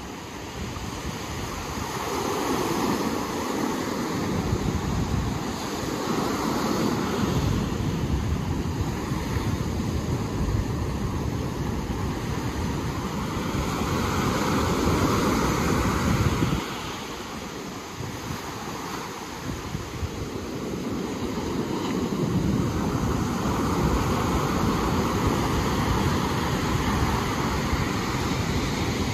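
Ocean surf: waves breaking and washing in, swelling and easing every few seconds, with wind rumbling on the microphone. The sound drops sharply a little past halfway, then builds again.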